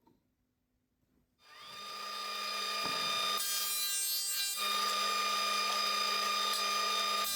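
An electric power tool starts about a second and a half in, its motor whining up to speed, then runs steadily with a high whine over a hiss. A harsher, hissier stretch of about a second in the middle is typical of the tool working the wood.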